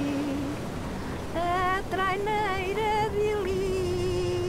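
A woman singing unaccompanied, holding a long note with vibrato from about a second and a half in, over the steady wash of sea surf and wind.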